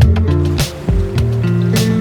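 Background music: a bass line of held notes under a drum beat, with sharp snare-like hits about a second apart.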